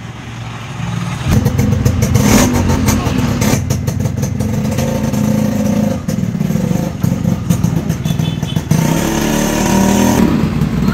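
Yamaha RX100's two-stroke single-cylinder engine running, ticking over quietly at first, then revved hard from about a second in, with the throttle blipped up and down repeatedly as the bike pulls away.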